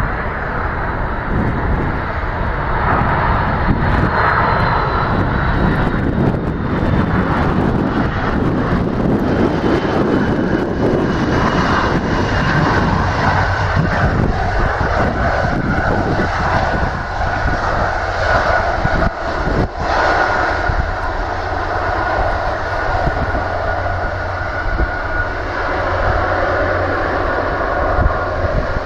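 British Airways Boeing 767-300ER's Rolls-Royce RB211 jet engines running loud and steady as the airliner rolls along the runway, with a thin whine coming in about halfway through.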